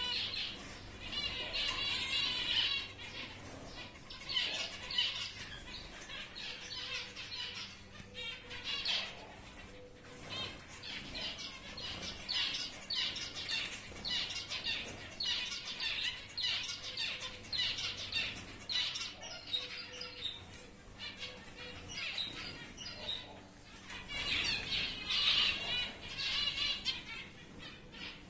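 A flock of giant zebra finches calling: a continuous chatter of many short, overlapping calls that swells and dips in clusters.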